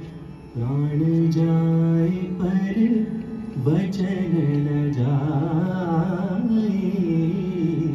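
Indian classical-style music from a sound-and-light show's soundtrack: a slow melody of long held notes that slide between pitches, over a steady drone.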